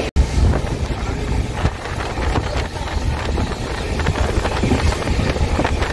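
Wind buffeting the microphone over the steady rumble of a moving passenger train.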